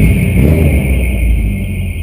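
Volkswagen Santana's 2.0-litre AP four-cylinder engine revved: a loud burst of throttle at the start that eases off as the revs fall, dropping lower near the end.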